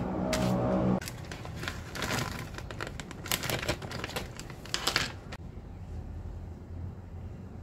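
Clear plastic zip-lock bag crinkling and rustling as it is handled and filled with frozen chilli paste cubes, in irregular bursts from about a second in until about five seconds in.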